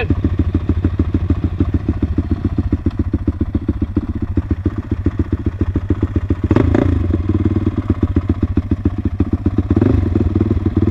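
KTM 500 EXC's single-cylinder four-stroke engine idling with a steady, rapid pulse. It swells briefly about six and a half seconds in and again near the end.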